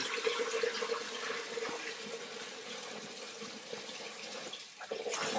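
Water running from a tap into a container, filling feed tubs with water to soak food into slop, with a steady tone over the rush of the water. The flow dips briefly near the end, then picks up again.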